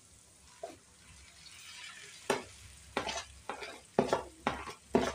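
Mashed boiled potato tipped into a pan of hot oil with a soft sizzle building about a second and a half in, then a run of about six sharp knocks and scrapes as a steel spoon pushes the potato off the plate.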